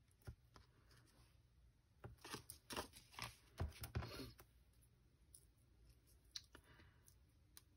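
Faint crinkling and short clicks of small foam adhesive squares being handled and stuck onto a paper card, mostly in a cluster a couple of seconds in, with a few more near the end.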